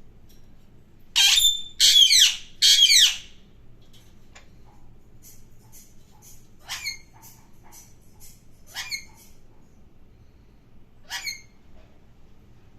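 Alexandrine parakeet screeching: three loud, harsh calls in quick succession about a second in, then three quieter single calls a couple of seconds apart.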